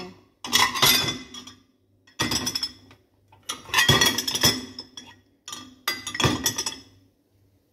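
Dishes clinking and clattering against each other and the dishwasher rack as they are loaded in, in four separate bursts.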